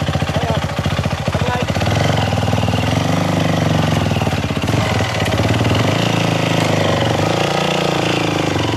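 Single-cylinder Yamaha WR trail bike engine running steadily at low revs, its pitch rising and falling a little as it pulls a dead bike on a tow rope through a muddy creek.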